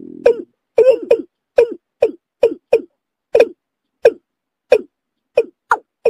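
Watercock calling: a rapid series of short, sharp notes, each dropping in pitch, about two a second. A low steady hum runs under the first half-second and then stops.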